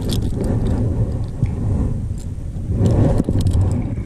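Wind rumbling across an action-camera microphone on an open boat, a steady low buffeting, with a few small clicks from handling the fishing tackle.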